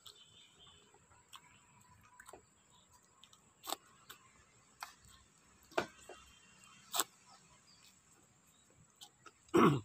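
Eating by hand from a steel plate: fingers scraping and working food on the metal, with a few scattered sharp clicks and a louder short sound just before the end.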